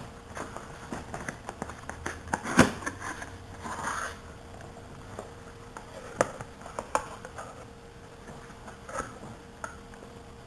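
Cardboard box and packaging being handled and opened: scattered clicks, taps and light rustling, with one sharper knock about two and a half seconds in.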